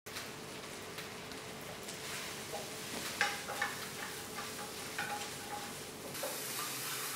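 Food sizzling in a wok while a wooden spatula stirs it, with scattered scrapes and clacks against the pan. The sizzle grows louder and brighter about six seconds in.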